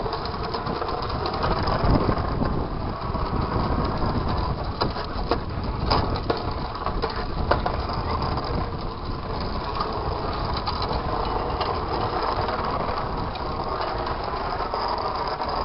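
Small battery-powered combat robot driving over asphalt: its drive motors whine, the pitch rising and falling as it speeds up and turns, over a rattling rumble of wheels on the rough surface, with a few sharp knocks.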